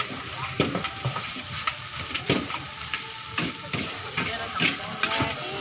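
Fried rice (nasi goreng) sizzling in a hot pan as it is stir-fried. Irregular sharp scrapes and clanks of a spatula against the pan come every half second to a second over the steady sizzle.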